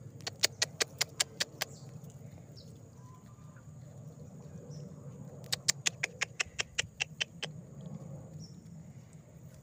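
Two quick runs of sharp clicks, about five or six a second: a short run just after the start and a longer one past halfway that slows a little at its end. A thin steady high tone runs underneath.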